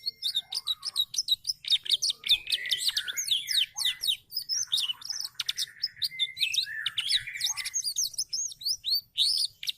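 Canary singing a long, continuous song of rapid chirps, trills and quick whistled notes.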